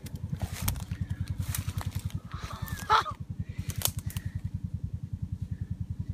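Footsteps crunching through dry, matted grass and brush, with twigs cracking now and then; the sharpest crack comes about three seconds in. A steady, fast low throb runs underneath throughout.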